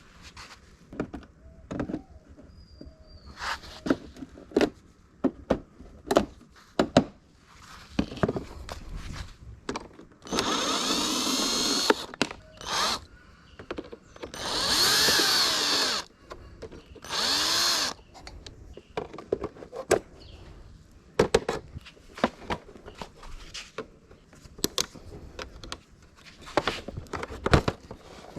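A hand-held power tool, such as a drill, running in three short bursts, its motor speed rising and falling, amid many knocks and clicks of tools and parts being handled during a scooter teardown.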